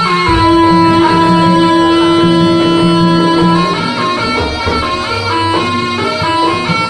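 Loud instrumental music for a barong dance: a melody of held notes, one long note sustained for about three seconds, over a pulsing low note.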